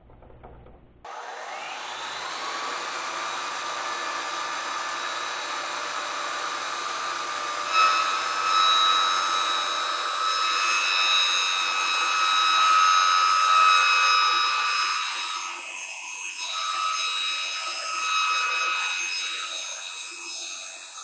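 Bridgeport mill head spindle driving a Woodruff cutter through UHMW plastic: a steady machine whine with several high tones over the noise of the cut. It starts suddenly about a second in, rises in pitch briefly, and gets louder about eight seconds in.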